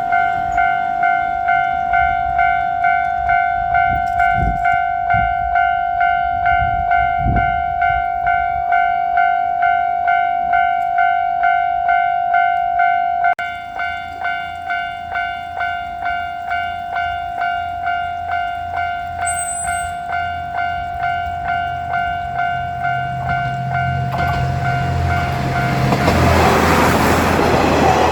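Japanese railroad crossing alarm ringing its electronic 'kan-kan' bell, a repeating ringing tone about twice a second. Near the end a diesel railcar train's engine and wheels rise over it as the train runs through the crossing.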